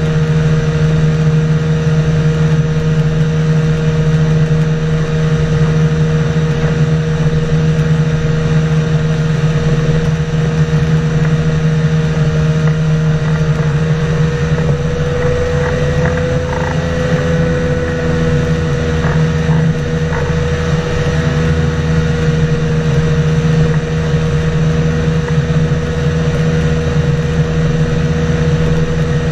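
Engine and pusher propeller of an ultralight flying-boat trike droning steadily in cruising flight. The engine note rises slightly about halfway through, then settles back.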